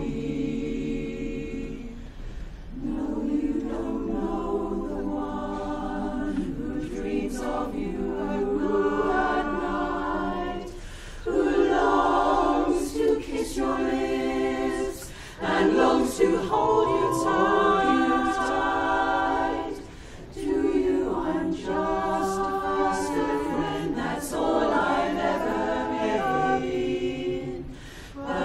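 Women's barbershop chorus singing a cappella in close harmony: held chords in phrases of a few seconds, each broken by a brief pause for breath.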